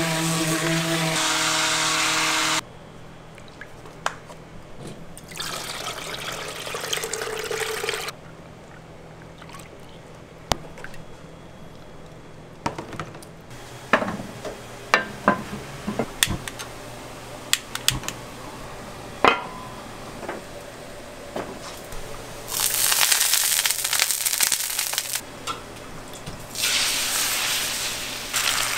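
An immersion blender whirs in a tub of beaten eggs and cuts off suddenly about two and a half seconds in. Then scattered metal clanks and knocks come as square egg-roll pans are moved about on a gas range. Near the end, beaten egg ladled into a hot oiled pan sizzles loudly in two spells.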